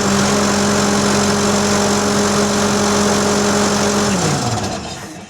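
Bobcat engine being cranked on a cold start. It turns over at a steady pitch, then winds down about four seconds in and fades away without staying running.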